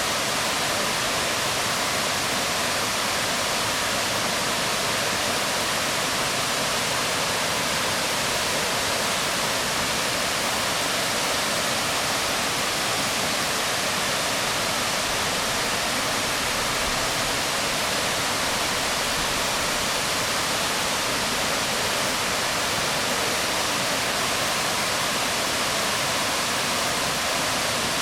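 Waterfall splashing onto rocks: a steady, unbroken rush of falling water.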